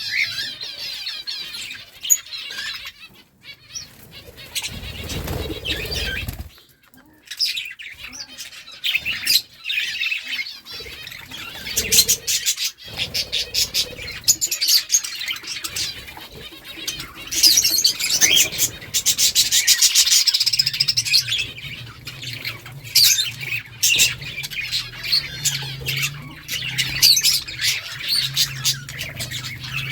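Budgerigars chirping and chattering, with fast warbling runs of rapid notes. A low steady hum comes in about two-thirds of the way through.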